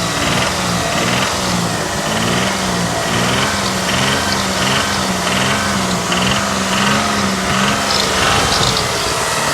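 Mitsubishi Montero's rebuilt 6G74 3.5-litre V6 engine being revved over and over, its speed rising and falling, with a knock that shows up around 2000 rpm under throttle but not at idle. The owner wonders whether it is a connecting rod.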